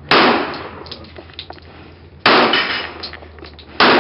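Three semi-automatic pistol shots: one right at the start, one a little over two seconds in, and one near the end. Each sharp crack trails off in a long echo.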